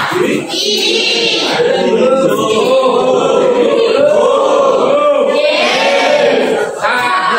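A roomful of young people singing together in a group, men's and women's voices mixed.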